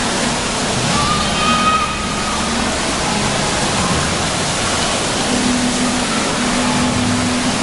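Steady rush of water pouring and splashing into a shallow children's splash pool.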